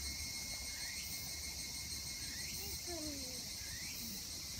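Steady high-pitched insect chorus, with a few short calls falling in pitch over it.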